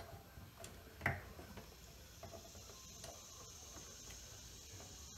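Faint clicks and scrapes of a small hand tool working an intake plenum hose clamp loose, with one sharper knock about a second in.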